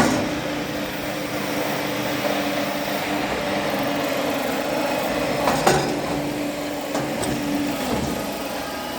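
Small electric backhoe running with a steady hum from its 5 hp electric motor, with a few sharp knocks about five and a half seconds in and again around seven seconds.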